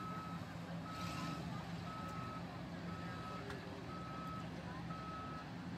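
Backup alarm beeping steadily, six even half-second beeps about once a second, over a low engine rumble.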